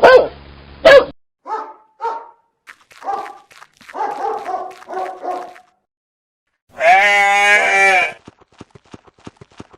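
Animal calls: several short bleats, then one long wavering goat bleat about seven seconds in. Near the end comes a quick run of light clicks.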